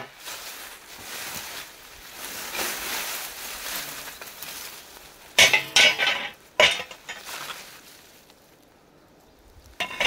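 Rusty scrap metal being rummaged out of dry grass and leaf litter: rustling, then three sharp metallic clanks a little past halfway, after which it goes quieter.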